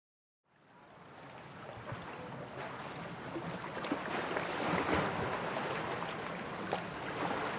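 Sea ambience fading in from silence: an even rush of waves and wind that grows steadily louder, with scattered small splashes and clicks.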